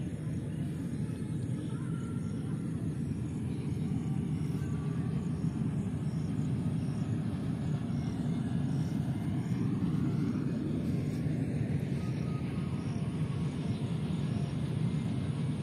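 Steady low outdoor rumble, an even background noise that swells slightly through the middle, with faint higher tones above it.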